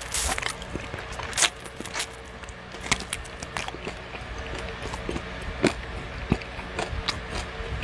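Close-up chewing and crunching on the cartilage of a fried chicken drumstick: irregular sharp crunches and clicks, loudest about one and a half seconds and five and a half seconds in.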